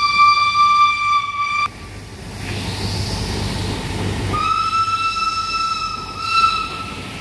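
Steam locomotive whistle blowing two long steady blasts. The first cuts off abruptly about two seconds in, and the second, slightly higher, starts about four and a half seconds in, with the train's rumble running between them.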